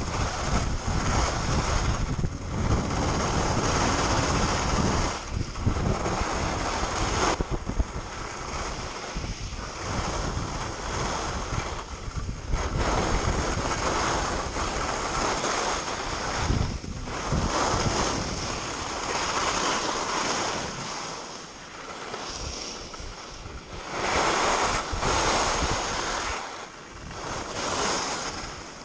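Wind rushing over the microphone while skiing downhill, with the hiss of skis scraping and carving on packed snow swelling in uneven surges with the turns. It grows quieter near the end as the skier slows.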